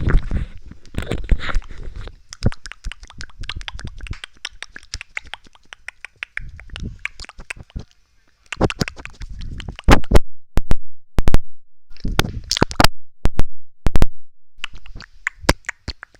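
Close-miked ASMR mouth sounds: rapid wet clicks, pops and smacks of lips and tongue. After a short pause about eight seconds in, a run of louder, sharper clicks follows.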